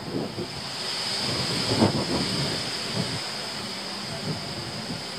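Wind buffeting the microphone outdoors, swelling for a moment about a second in. Under it run a steady high-pitched hiss and soft, irregular low thumps.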